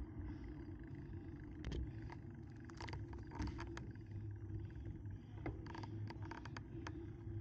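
Wind rushing over the microphone and bicycle tyres rolling on asphalt while riding, a steady low rumble, with scattered short clicks and rattles from the bike.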